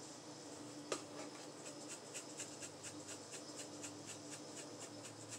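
Dried parsley shaken out of a spice jar: a faint, fast, even patter of about five or six small taps a second, with one sharper click about a second in, over a steady faint hum.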